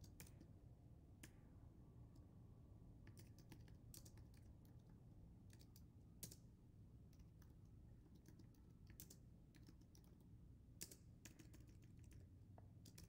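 Faint computer keyboard typing: scattered key clicks, some in quick runs, over a low steady hum.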